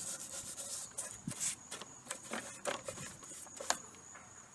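An old paint brush dabbing and scrubbing runny paint stripper over ceramic and metal lamp parts in a plastic tray: irregular wet bristle swishes with light knocks, the sharpest tap a little before the end, then dying down.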